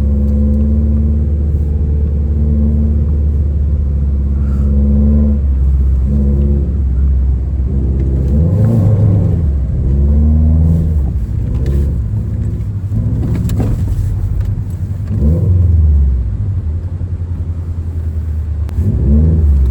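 Subaru WRX's turbocharged flat-four engine running steadily, then revved up and down several times in quick succession, with the last rev near the end among the loudest.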